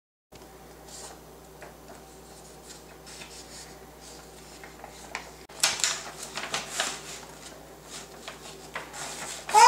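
Rustling and small knocks of a paper sign being handled, over a faint steady hum; the handling is loudest about halfway through. Right at the end a high-pitched voice starts, sliding upward.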